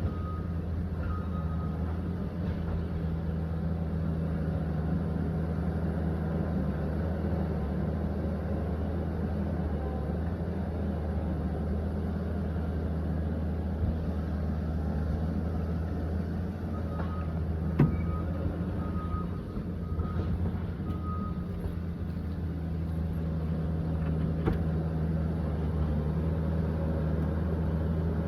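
Liebherr 744 crawler dozer's diesel engine running steadily under work, with a run of short high beeps briefly near the start and again past the middle, and a couple of sharp knocks at about 18 and 24 seconds.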